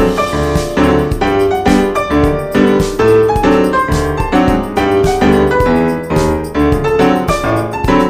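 Background piano music, notes struck one after another in an even rhythm.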